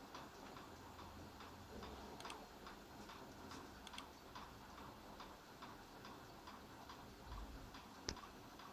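Near silence: faint room tone with soft, irregularly spaced ticks and one sharper click about eight seconds in.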